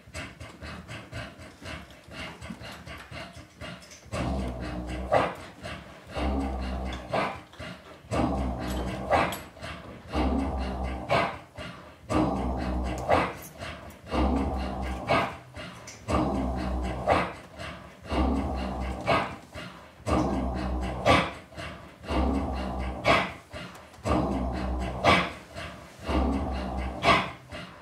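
Live experimental music: about four seconds in, a repeating loop begins, with a deep low pulse about every two seconds and sharp hits about once a second layered over it.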